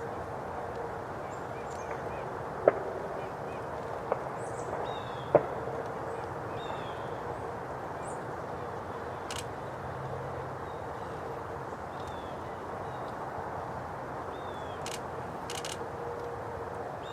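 Small birds giving short, high, downward-sliding calls over a steady outdoor hiss, with three sharp clicks in the first half.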